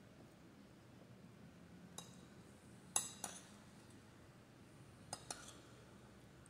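Metal spoon clinking against a glass bowl: a single light clink, then a louder close pair about a second later, and another pair near the end.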